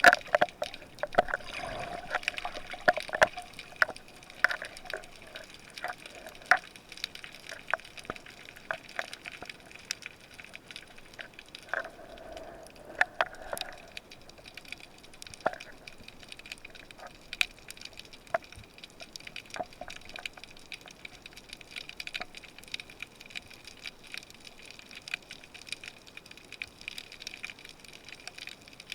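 Underwater sound of a spearfishing dive: moving water with many scattered sharp clicks and crackles, busiest in the first few seconds and again about twelve seconds in.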